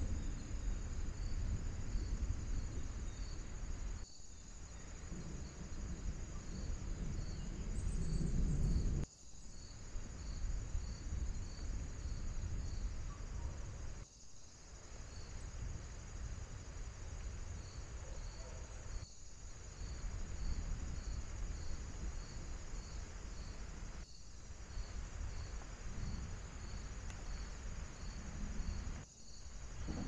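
Outdoor background noise picked up by a trail camera's built-in microphone: a steady low rumble under a thin high whine with faint regular pips about twice a second. The sound drops out briefly about every five seconds.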